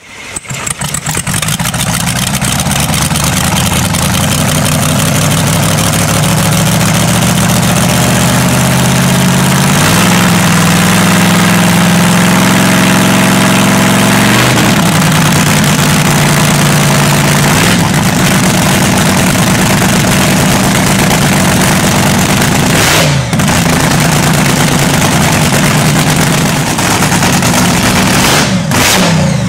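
Dragster engine starting up and running loud and steady, its pitch stepping up and back down as the throttle is worked. It gives a quick sharp rev about two-thirds of the way through and a few more near the end.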